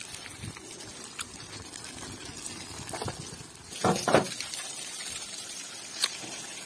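Water from a hose spraying and running off a JCB 3DX backhoe loader as it is washed, a steady watery hiss with dripping. Two louder bursts come about four seconds in, and a short sharp click follows about two seconds later.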